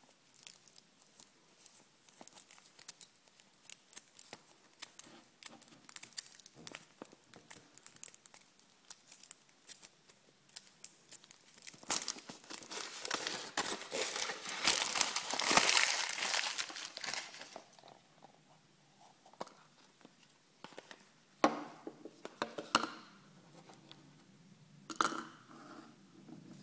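Foil wrapper of a Kinder Maxi chocolate egg being peeled and crumpled: it crinkles and tears in small crackles at first, then densely and loudly for several seconds about halfway through. A few sharp cracks follow near the end as the chocolate shell is broken open to reach the yellow plastic capsule.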